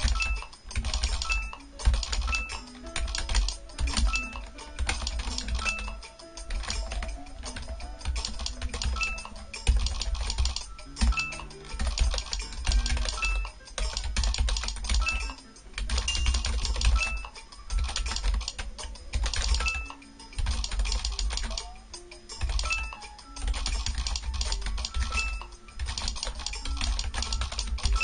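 Keyboard typing in bursts of a second or two, with short pauses between, over quiet background music.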